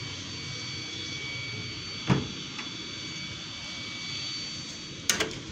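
Steady machinery drone with a thin high whine, broken by a single knock about two seconds in and a few sharp clicks near the end.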